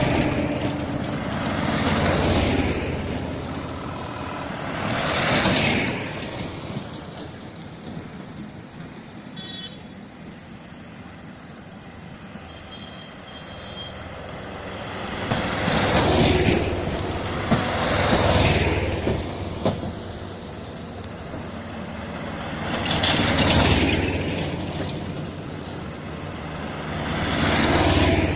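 Small four-wheeled mini trucks driving past one after another, the engine and tyre noise of each swelling as it comes close and fading as it goes, about seven passes in all. There is a quieter lull in the middle before the later vans come by.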